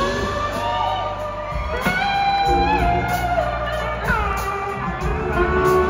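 Live blues-rock band playing, with an electric slide guitar carrying the lead in gliding notes that slide up and down over drums and bass.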